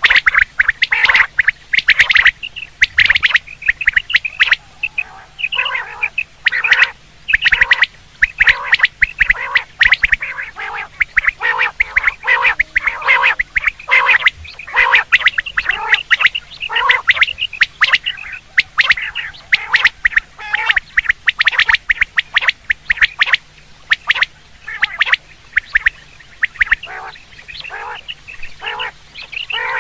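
Quail calls, short sharp notes repeated rapidly and continuously, many overlapping: a quail calling sound of the kind played to lure quail during the hunting season.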